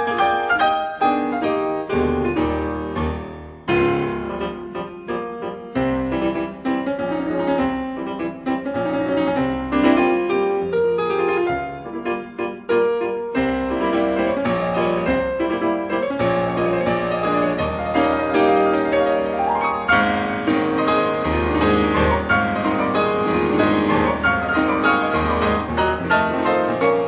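Background piano music, a flowing melody over a low bass line with many quick notes.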